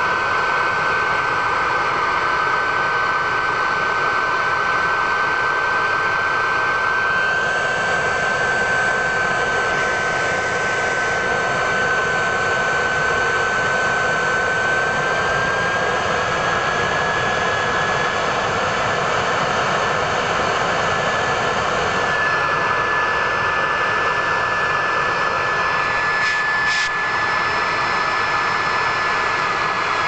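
54 mm model turbojet engine running steadily at around 91,000 rpm: a high, steady whine over a broad rush of jet noise. The whine steps slightly higher about halfway through as the engine speeds up a little.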